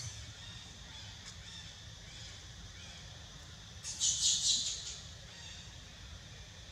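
A single harsh, high-pitched animal call about four seconds in, lasting under a second, over a faint steady high hum.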